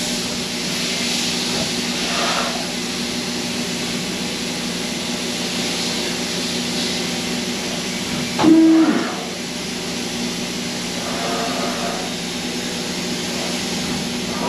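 CNC tool and cutter grinder running its probing cycle on a carbide drill: a steady machine hum and hiss, with a brief louder whine about eight and a half seconds in.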